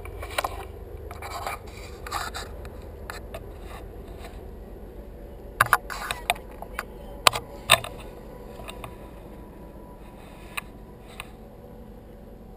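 Handling noise from a shotgun carrying a gun-mounted microphone: scrapes, rubbing and a few sharp clicks as the gun is held and shifted. The clicks bunch together between about five and a half and eight seconds in.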